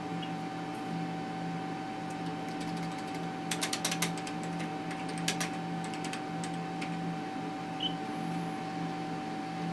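Steady electronic hum of ultrasound equipment, with a quick run of sharp clicks about three and a half seconds in and a few more around five seconds, like keys being pressed on the scanner's console.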